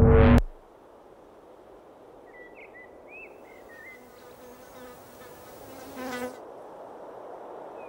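Loud music cuts off abruptly, giving way to a faint open-field ambience with a few soft bird chirps. About six seconds in, a fly buzzes briefly past close by.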